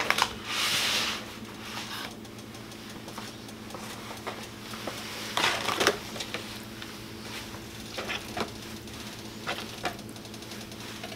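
Faint kitchen handling sounds: a brief hiss in the first second, then scattered light clicks and knocks over a steady low hum.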